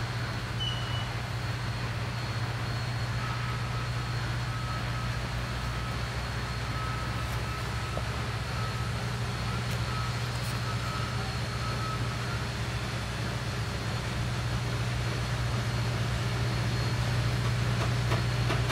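A passenger train creeping coach-first toward a road crossing, heard as a steady low drone with a faint hiss. It grows louder over the last few seconds as the rear coach comes close, with a few clicks near the end.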